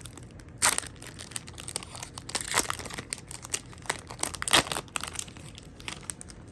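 Pokémon trading cards and a foil booster-pack wrapper being handled, crinkling with irregular sharp snaps. The loudest come about two thirds of a second in and again around four and a half seconds in.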